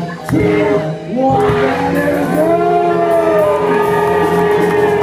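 Live rock band playing a song: a singer over drums and electric guitar, with one long held note through the second half.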